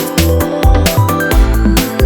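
Electronic dance music with a steady driving beat, heavy bass and synth melody.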